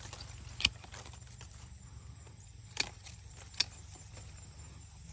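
Hand pruning shears snipping durian twigs and leaves: three sharp snips, one about half a second in and two close together around three seconds, over a faint steady low hum.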